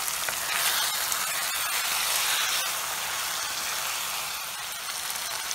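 Chicken sizzling in tomato-onion masala in a pan: a steady frying hiss with faint clicks as a spoon stirs it.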